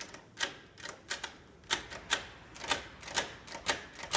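Front door lever handle and latch mechanism, partly taken apart, clicking as the handle is pushed down and let go over and over, about two sharp clicks a second at an uneven pace. The latch works through without catching, so the intermittent sticking fault does not show.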